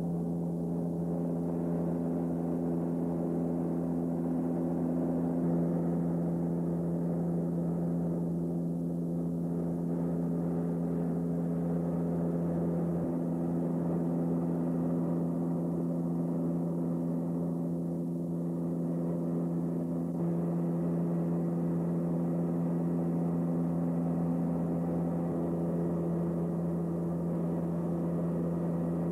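Steady cabin drone of a Beechcraft King Air 200's twin turboprop engines and propellers in cruise flight: an even hum made of several held tones, with no change in pitch.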